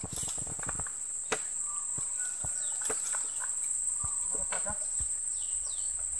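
Steady high-pitched insect chorus, with scattered snaps and rustles of dry bamboo and leaf litter being trodden through. The sharpest snap comes about a second in.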